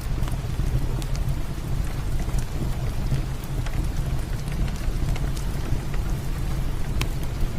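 Heavy rain falling steadily with a deep low rumble, mixed with the scattered sharp pops and crackles of a wood fire in a fireplace.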